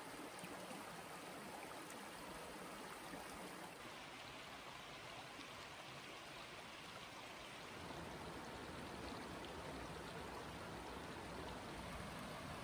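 A stream running steadily, heard faintly, with a low rumble joining about eight seconds in.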